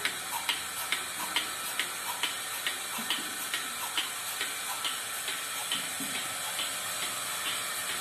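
Milking machine pulsator ticking steadily, a little over two clicks a second, over a steady hiss from the vacuum line while a cow is being milked.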